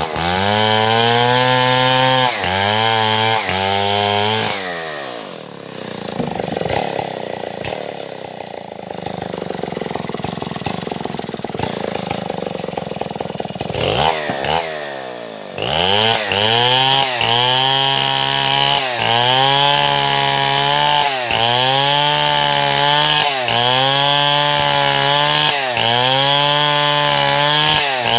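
Stihl MS070 two-stroke chainsaw cutting wood, its engine pitch sagging under load and recovering over and over. About four seconds in it drops to a quieter, rough low running for roughly ten seconds, then revs up again and cuts on with regular sags about every second and a half.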